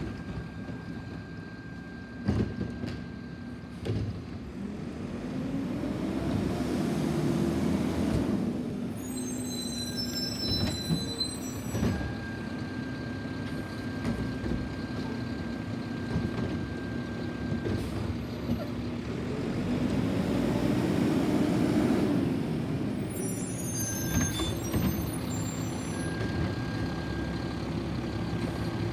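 Front-loading garbage truck with an automated arm on its front-mounted can, its diesel engine running and revving up twice as the hydraulic arm lifts trash carts. Each lift is followed by rattling and banging as the cart is shaken out and trash drops into the can.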